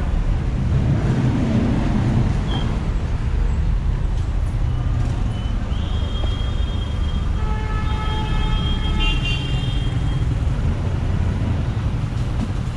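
Busy city street traffic: a steady rumble of passing cars and buses. A little past the middle a high-pitched tone sounds for about two seconds.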